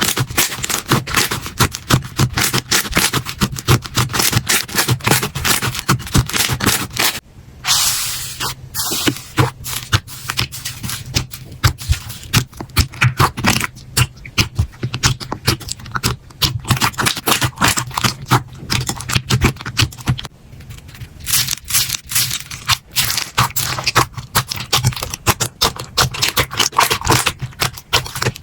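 Slime being pressed and squeezed by hand, giving a fast, dense run of crisp crackles and clicks, with brief lulls about seven and twenty seconds in.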